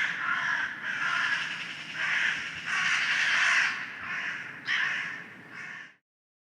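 Crows cawing loudly, several harsh calls overlapping with little pause between them, until the recording cuts off abruptly about six seconds in.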